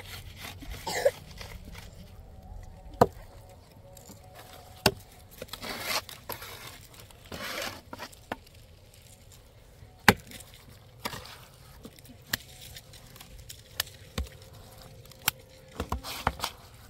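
Irregular sharp knocks, one every second or two, with a couple of longer scraping rustles in between, like hand work on wood.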